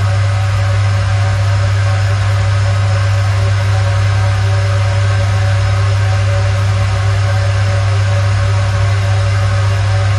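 Electric ventilation fan running steadily: a strong, constant low hum with a few steady higher tones over an even rush of air.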